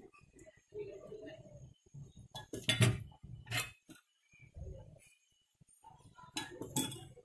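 Kitchen utensils clinking against dishes as food colour is added bit by bit, with a few sharp clinks about three seconds in and again near the end, and soft handling sounds between.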